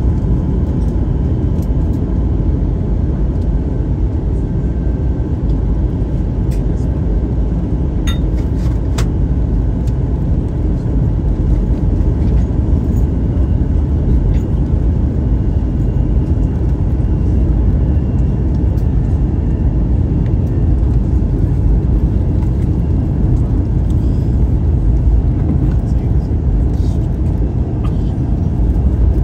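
Airbus A321 airliner cabin in flight: a steady low rush of engine and airflow noise.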